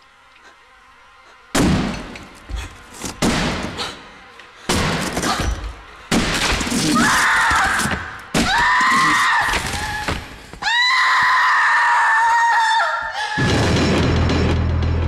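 Heavy axe blows splintering a wooden door, several sudden chops, followed by a woman screaming in long, high, wavering shrieks. A low drone comes in near the end.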